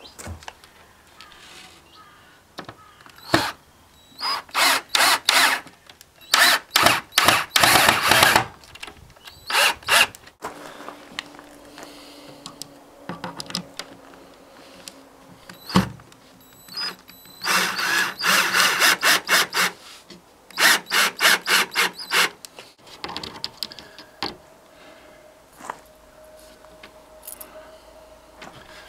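Cordless drill-driver running in repeated short bursts of a fraction of a second to about two seconds each, driving wood screws into melamine-faced chipboard panels.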